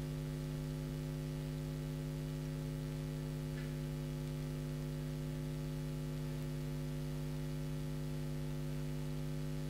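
Steady electrical mains hum: one low tone with a stack of higher overtones above it, unchanging throughout.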